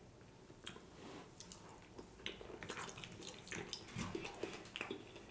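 Close-miked chewing of a mouthful of hot shrimp and grits: soft wet mouth clicks and smacks at irregular intervals, more frequent from about two seconds in.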